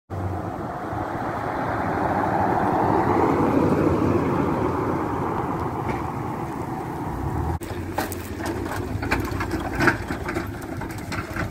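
Jeep Wrangler JKU driving past: engine and tyre noise swell as it approaches, loudest a few seconds in, then fade. About two-thirds of the way through there is an abrupt cut to a rougher outdoor sound with scattered crackles and thumps.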